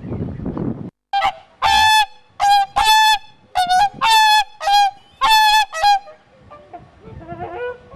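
Pair of whooper swans trumpeting: a run of about eight loud honking calls, each under half a second, from about a second in to about six seconds, then softer, lower calls near the end.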